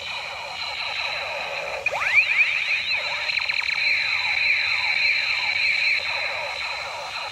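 Electronic sound effect from a battery-powered toy blaster gun's small speaker: repeated falling laser-like pitch sweeps over a steady high tone, with a sharp rising sweep about two seconds in.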